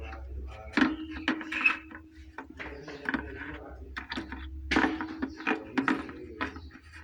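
Repeated knocks and clicks of an under-sink water heater's casing being handled and hung onto its wall screws.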